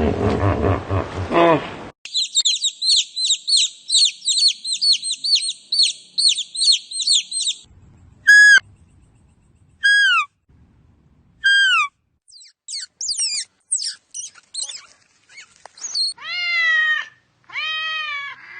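A string of separate animal calls. A pitched cry with overtones ends about two seconds in, followed by several seconds of rapid, high, repeated bird chirping. Three separate falling whistled calls come next, then scattered chirps, and near the end a few drawn-out falling calls with rich overtones.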